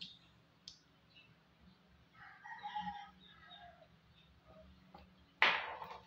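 A rooster crowing faintly, one crow of about a second and a half. Near the end comes a brief, louder rustle.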